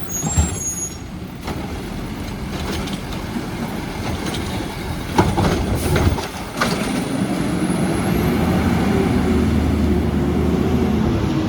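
Heil Rapid Rail automated side-loading garbage truck working a cart: the engine runs steadily, with a sharp knock about half a second in and a cluster of clanks of the arm and cart around the middle, after which the engine revs up with a steady whine.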